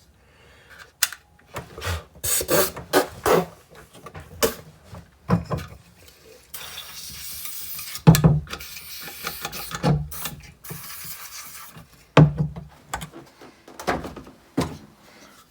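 Parts of a disassembled Makita multi tool being handled, knocked and rubbed: irregular clicks, knocks and scraping, with a short steady hiss about six and a half seconds in.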